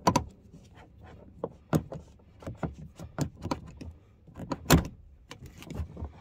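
Irregular clicks, knocks and rustling from hands working a twisted seatbelt strap through its plastic pillar guide to straighten it, the loudest knock about three quarters of the way through.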